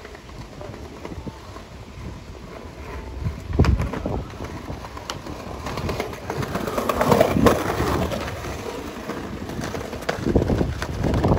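Skateboard wheels rolling over tiled and concrete paving during a one-foot manual, with a few sharp knocks of the board. The rolling is loudest about seven seconds in.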